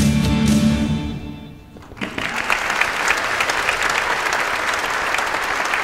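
The band's final chord, with guitars, rings out and fades over about two seconds. Then the congregation breaks into applause that carries on steadily.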